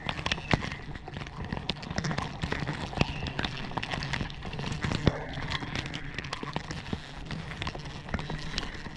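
Close handling noise from a tree climber: gloved hands and body rubbing on rope and bark, with many rapid, irregular clicks and knocks over a steady low hum.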